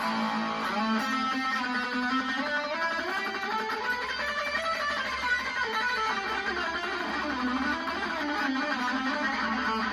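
Electric guitar played through two stacked overdrive/drive pedal circuits at once, giving a heavily driven, saturated tone. It plays sustained notes and chords continuously, with bending and sliding pitches.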